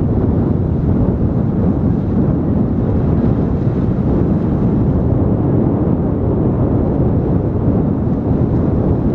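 Wind buffeting the microphone on an open seashore: a loud, steady low rumble that does not let up.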